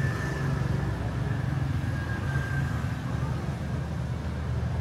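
Steady low engine hum over a continuous background of outdoor noise.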